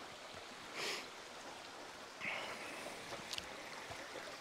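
Forest stream running steadily, with a few short faint noises over it about one second in, just past two seconds, and a little after three seconds.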